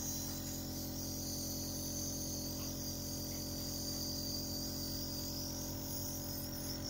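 Nebulizer compressor running: a steady motor hum under a constant high-pitched hiss.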